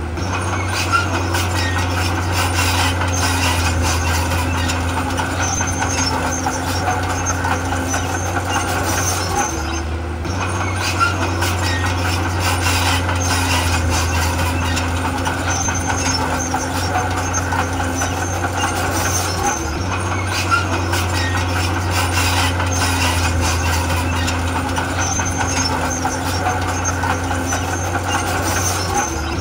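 Heavy diesel earthmoving machinery, bulldozer and dump trucks, running steadily with a deep engine hum and scattered clicks and knocks. It dips briefly about every ten seconds.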